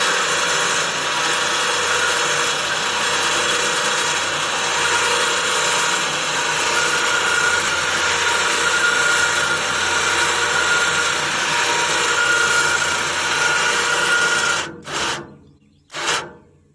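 Electric motor of a sawmill's blade-height drive running steadily as it lowers the head about 2 inches, with a faint whine. It stops after about 14 seconds, then comes three or four short bursts as the height is nudged to the mark.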